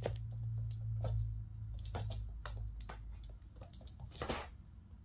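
Kittens' paws running and skidding on a hardwood floor and foam mats: a scattered run of light taps and thumps, with a longer scrabbling scuffle near the end. A steady low hum sits under the first half.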